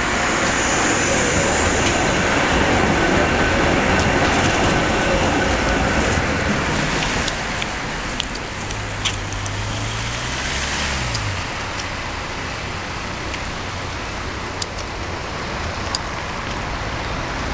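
Tram running on its rails as it approaches and draws up close. A rumbling run carries a thin squeal in the first few seconds. A low motor hum rises and then drops in pitch about halfway through, and sharp clicks come at intervals in the second half.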